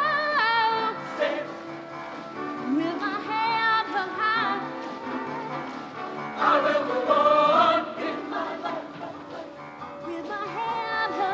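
A show choir singing with instrumental accompaniment: a female lead belts wavering sung lines into a microphone while choir voices and a steady backing sound under her.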